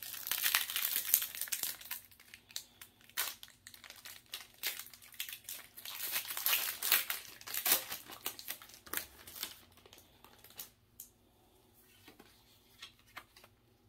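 Foil wrapper of a Pokémon trading-card booster pack crinkling and tearing as it is opened and handled: a dense run of crackles for about eight seconds, then only scattered faint crackles as the cards are handled.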